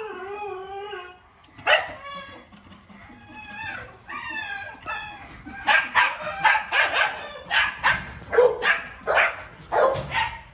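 A dog whining in drawn-out, wavering calls, then breaking into a quick run of short yapping barks in the second half.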